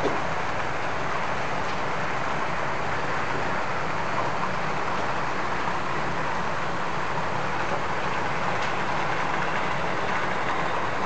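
Steady rolling and motor noise of O-scale model trains running on a layout.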